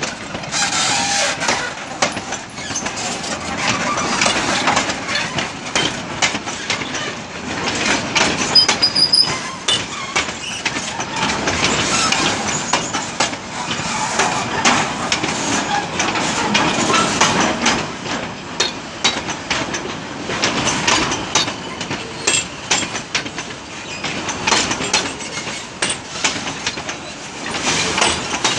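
Narrow-gauge wooden passenger carriages propelled slowly by the NA-class steam locomotive 7A, their wheels clacking and clanking over the points and rail joints in an uneven run of knocks.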